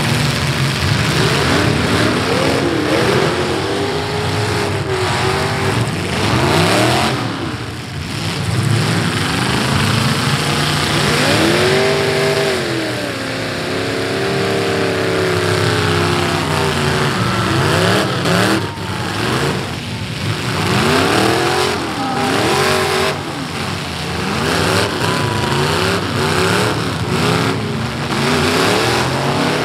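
Several V8 demolition derby cars revving hard, engine pitch repeatedly rising and falling as they accelerate and back off, with a few sharp crashes of metal as cars collide.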